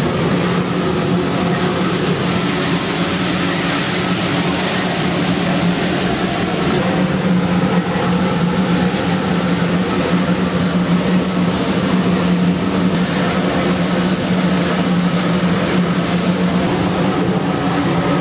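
Steam locomotive 25-026 under way, heard from inside its cab: a loud, steady running noise with a continuous hum. From about seven seconds in, a regular beat of short pulses comes in at roughly two a second.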